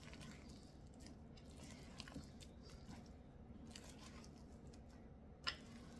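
Hand squeezing and mixing shaggy, flour-dusted sourdough dough in a bowl: faint squishing and crackling, with a sharp tap near the end. A low steady hum underneath.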